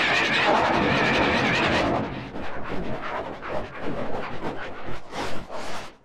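Production-logo audio distorted by editing effects. It starts as a dense sound with wavering high tones, then from about two seconds in breaks into rapid, stuttering chopped fragments.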